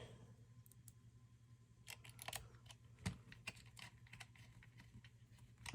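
Faint, irregular small clicks and taps of airsoft rifle parts being handled during reassembly, over a faint steady low hum.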